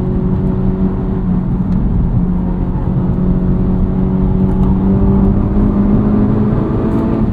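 Honda Civic Type R FL5's turbocharged 2.0-litre four-cylinder, heard from inside the cabin through an MRT Street Race straight-through axle-back exhaust, cruising at highway speed with a steady exhaust drone. The drone rises a little in pitch over the last few seconds as the car speeds up.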